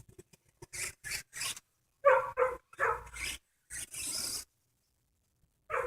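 A dog barking in short, sharp barks, two close together about two seconds in, two more just after and one near the end, with scuffing and rubbing noises between them.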